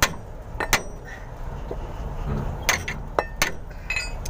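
Several sharp metallic clanks, irregularly spaced, from blows on a pipe wrench gripping a truck's differential pinion nut. The wrench is being struck to shock the nut fully tight after the flange and new pinion oil seal were fitted.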